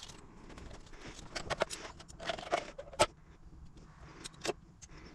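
Fast-forwarded handling noise of a plastic Ideal Standard/Armitage Shanks flush valve being worked with pliers to get the old diaphragm washer off: a quick run of irregular clicks and scrapes, with a sharp click about three seconds in.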